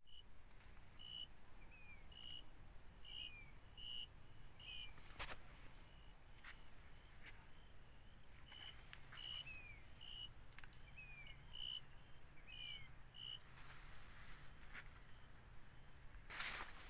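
Night insects trilling, a faint, steady, high-pitched unbroken tone. A lower, short call repeats about once a second over it, some notes followed by a quick falling slur, and a short burst of rustling noise comes near the end.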